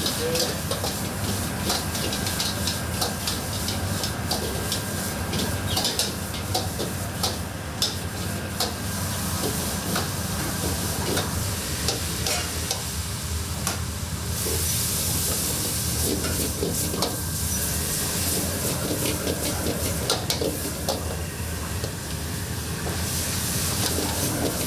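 Food stir-frying in a hot pan, with many clicks of a metal utensil against the pan. Two louder bursts of sizzling hiss come, one a little past the middle and one near the end.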